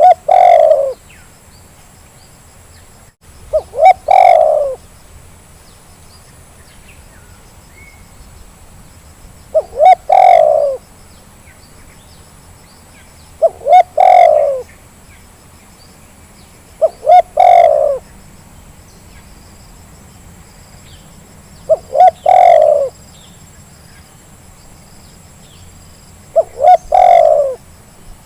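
Spotted dove (terkukur) cooing, repeated as a lure call to get lazy doves to sing. There are seven phrases spaced three to six seconds apart, each two quick short notes followed by a longer coo.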